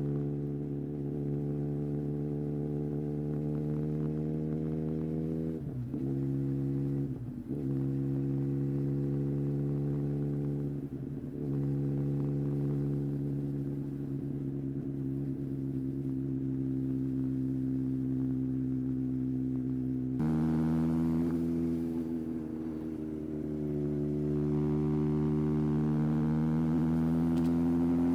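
Yamaha XJR1300's air-cooled inline-four engine running steadily, with two brief dips in pitch about six and seven seconds in. About twenty seconds in the tone changes suddenly, then the pitch sags and slowly climbs towards the end.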